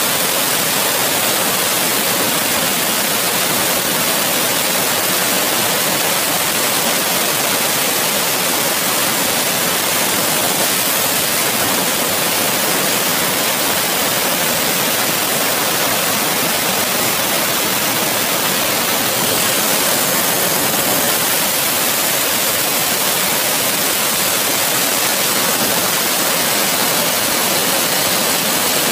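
Large water-cooled stone-cutting circular saw grinding into a hard river stone held against the blade by hand: a loud, steady hissing grind that holds unchanged throughout.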